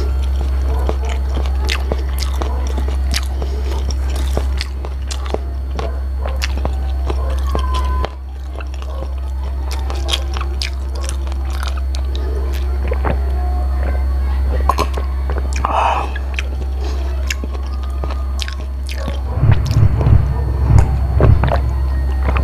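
Close-miked mouth sounds of eating: chewing, lip smacks and wet clicks as he finishes the food and licks his fingers. Near the end come several loud gulps as he swallows water from a glass mug. A steady low hum runs underneath.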